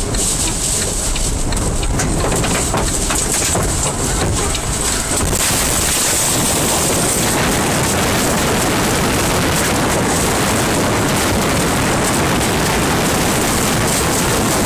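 Heavy rain and tornado-force wind lashing a vehicle on the interstate as an EF-2 tornado strikes. About five seconds in the noise jumps to a dense, steady rush.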